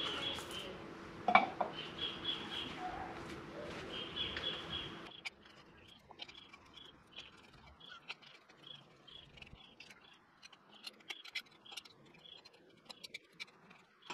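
Light clicks and knocks of the metal umbrella-base parts and bolts being handled, with a sharp knock about a second in, over repeated short bird chirps. A steady background hum cuts out abruptly about five seconds in.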